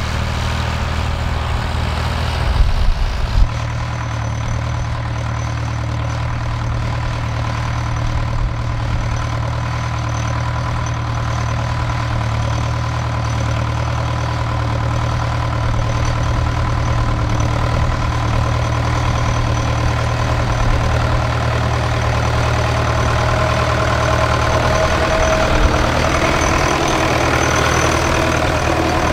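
Vintage tractor engines running steadily under load while working a field. A blue Ford tractor pulling a disc harrow is heard first; about three seconds in the engine note changes to a Fordson Major pulling a plough.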